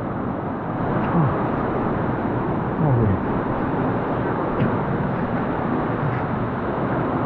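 Steady rush of river water and the cave's waterfall, a constant even noise, with faint voices briefly heard over it a second and three seconds in.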